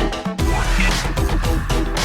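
Electronic background music with a steady driving beat, which drops out for a moment shortly after the start and then comes back in.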